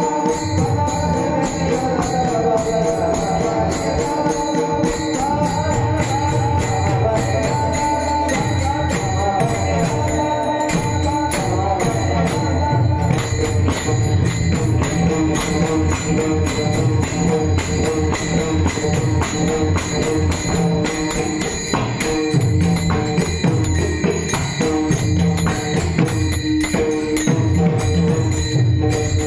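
Marathi devotional bhajan music: a singing voice carrying a wavering melody over a mridang drum and steadily jingling hand cymbals. The voice drops out about 13 seconds in, and the drum and cymbals play on with steady sustained tones.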